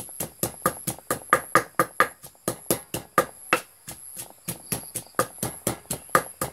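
Pestle pounding chili, garlic, galangal and lemongrass into a paste in a mortar: quick, even strikes, about four a second.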